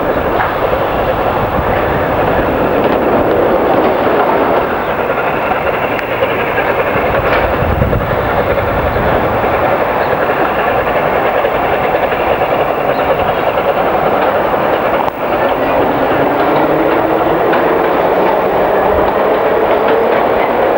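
LNER A4 Pacific steam locomotive 4468 Mallard approaching, a steady rushing sound of its working, with a low tone rising in pitch over the last few seconds as it comes closer.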